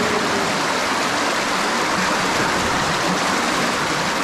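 Cave stream rushing over rocks in a small cascade: a hard current of splashing water, steady throughout.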